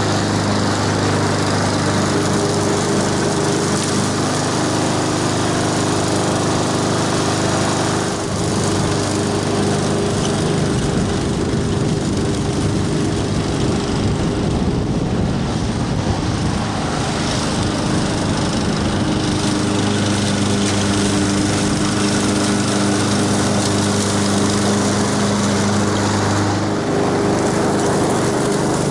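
Walk-behind gas lawn mower running steadily while cutting grass. Its engine hum fades in the middle as the mower moves off and comes back strong near the end as it approaches.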